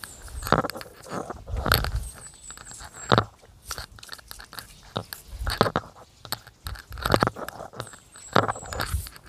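Broom sweeping a tiled floor: short scraping, crunching strokes in an irregular rhythm, about one a second.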